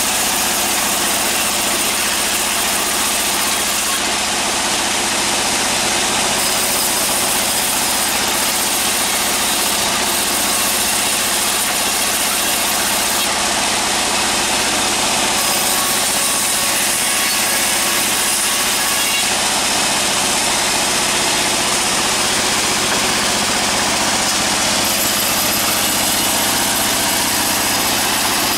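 An engine running steadily at an even speed, with no change in pitch or load.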